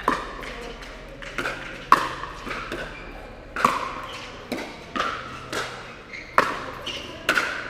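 Pickleball rally: about nine sharp pops of paddles hitting the hard plastic ball and the ball bouncing on the court, each ringing briefly in the large hall.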